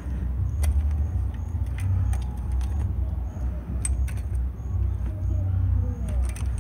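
Scattered metallic clicks and rattles from a mountain bike's chain, cassette and rear derailleur as a rear wheel that came out of its dropouts is worked back into the frame, over a steady low rumble.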